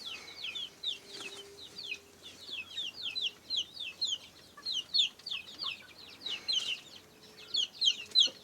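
A flock of kampung chicken chicks peeping: many short, high, falling cheeps overlapping, several a second.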